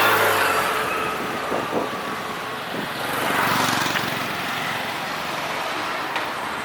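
Street traffic noise from passing motor vehicles, with one engine swelling past close by about three and a half seconds in.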